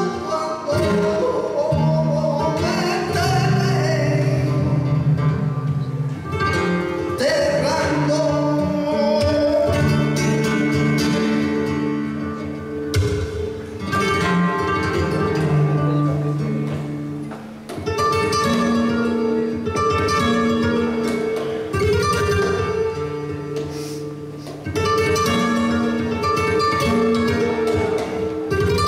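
Live flamenco: a male cantaor sings cante gitano in long, bending, ornamented phrases over a Spanish guitar playing plucked notes and runs.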